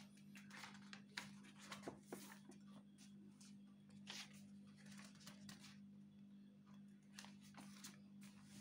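Near silence: faint room tone with a steady low hum and scattered soft rustles and clicks.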